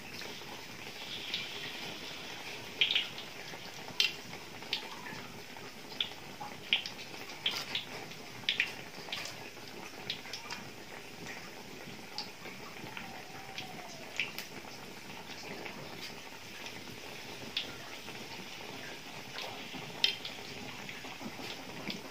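Battered tempeh deep-frying in hot oil in a wok: a steady sizzle with irregular crackling pops.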